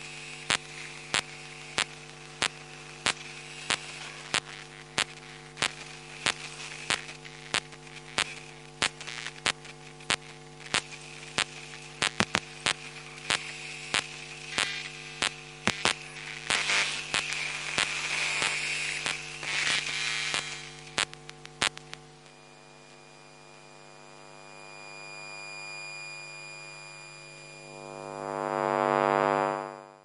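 Electronic buzzing hum with a steady pulse of sharp clicks, about three every two seconds. A hissing stretch follows, then the clicks stop, and near the end a tone swells up and cuts off abruptly.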